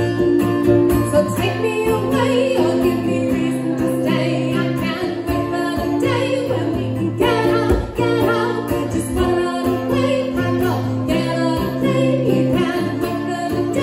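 Acoustic guitar and ukulele played together in a live song, with singing over the strummed chords.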